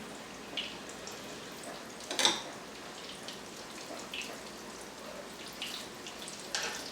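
Breaded chicken cutlets frying in hot olive oil in a skillet: a steady sizzle with scattered pops and crackles, the sharpest about two seconds in.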